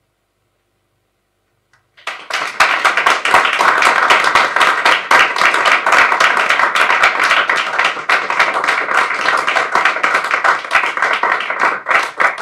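Near silence for about two seconds, then an audience starts applauding: a dense, sustained patter of hand claps, with a faint steady tone underneath.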